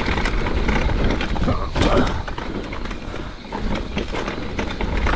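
Mountain bike riding fast down a dirt trail: tyres rolling over dirt, leaves and roots, with frequent rattles and clicks from the bike, a louder knock about two seconds in, and wind rumbling on the microphone.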